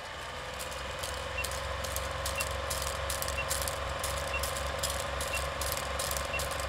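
Film projector sound effect: the steady whirring clatter of film running through the gate, with a short high beep once a second, six times, counting down a film leader.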